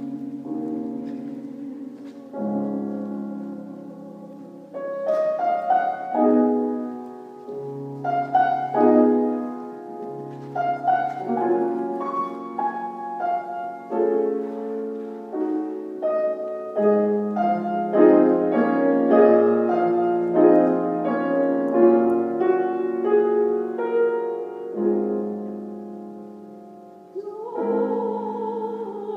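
Solo piano playing a slow, chordal interlude in a gospel spiritual arrangement, between sung verses. A soprano voice comes back in near the end.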